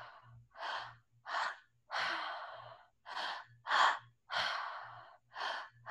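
A woman doing a three-part breath, all through the mouth: two quick inhales, belly then chest, followed by a longer exhale. The cycle repeats twice, and a third begins near the end.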